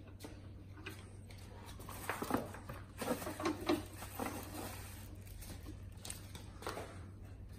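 Faint clicks and rustling from a welding cable's twist-lock connector being pushed into an inverter welder's front output socket and turned to lock, over a steady low hum.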